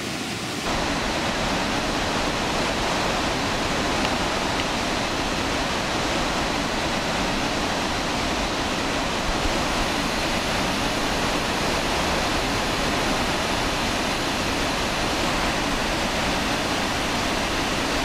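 Iguazu Falls' rapids and waterfall rushing: a steady, dense wash of water noise that jumps louder about a second in and then holds level.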